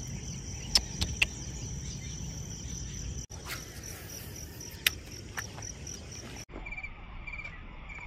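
Crickets trilling steadily in the background, with a few sharp clicks. The sound cuts off abruptly twice.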